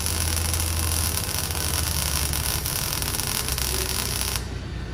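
Electric arc welding on a car's exhaust pipe, joining in a catalytic converter: a continuous crackling hiss from the welding arc that stops suddenly near the end, over a steady low hum.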